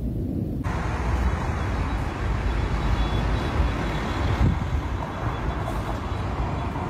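Steady outdoor rumble with a noisy hiss over it, like road traffic. About half a second in, a duller, deeper rumble gives way abruptly to this brighter noise, with a few heavier low thumps later on.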